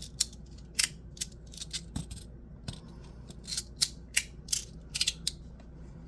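3D-printed sliding magnetic fidget slider being worked by hand: a string of sharp, irregular clicks as it is slid back and forth and snaps into place, about two or three a second.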